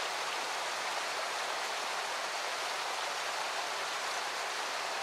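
Steady rushing of flowing river water, an even hiss with no distinct splashes.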